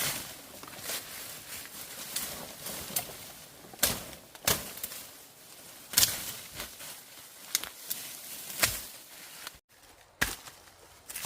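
A tool striking bamboo in a series of sharp knocks, roughly one a second at uneven spacing, with a few louder strikes.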